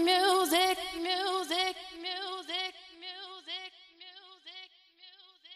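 The end of a pop dance song: a short sung phrase repeats about twice a second as a fading echo, the beat drops out about two seconds in, and the repeats die away to almost nothing.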